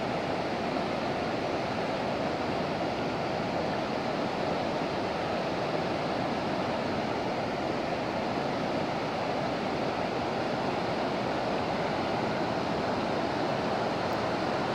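Steady rushing of river rapids, whitewater pouring over rocks into the lake, with a good flow of water running.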